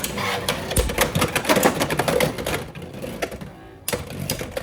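Beyblade X spinning tops, Reaper on the Turbo bit against Impact Drake 7-70 Flat, clattering in a plastic stadium with dense, rapid clacks and rattles as they skitter, collide and grind around the rim. It quietens briefly and a fresh burst of clacking starts about four seconds in.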